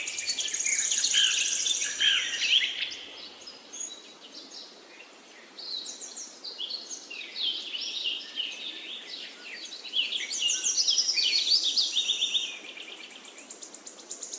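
Several birds chirping and trilling in high, quick notes, with fast repeated trills. The calling thins out in the middle and is busiest a few seconds before the end.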